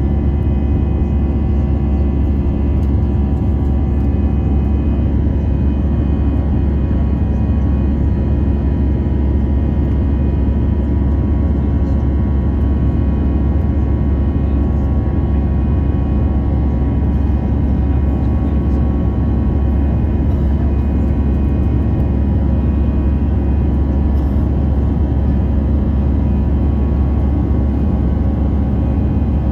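Airbus A320 cabin noise in flight: the jet engines and rushing air make a steady, deep drone with humming tones above it.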